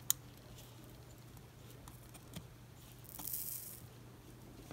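Soldering iron working a flux-coated copper strip against an SMD chip's pins: a small click at the start, a few light ticks, and a brief soft hiss of flux sizzling under the hot tip about three seconds in.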